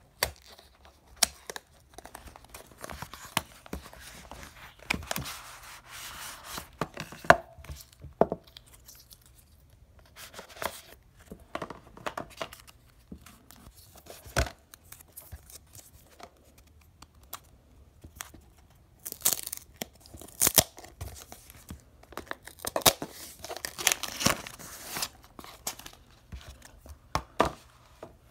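Phone packaging being opened by hand: a paper seal tearing and cardboard and paper rustling and sliding, in two longer stretches, with scattered sharp clicks and taps as the box and phone are handled.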